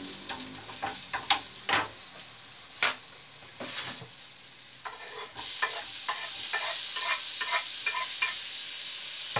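Food frying in a pan on a gas hob, with sharp scrapes and clicks of a utensil stirring in the pan. About five seconds in the sizzle grows louder, with quick small clicks, as chopped tomato is tipped in from a wooden chopping board.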